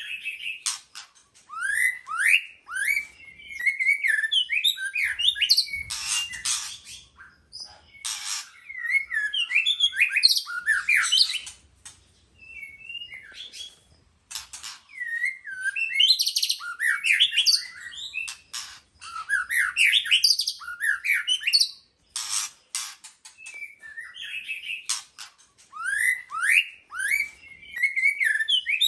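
White-rumped shama singing: bouts of sweeping whistled notes mixed with rapid, sharp chattering notes, broken by short pauses.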